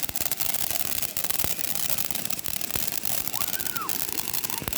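Outlaw firework fountain burning, spraying sparks with a steady hiss and many sharp crackles and pops.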